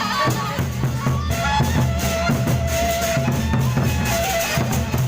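Sasak gendang beleq ensemble playing: large drums beat a busy, steady rhythm, with cymbals and a melody line on top.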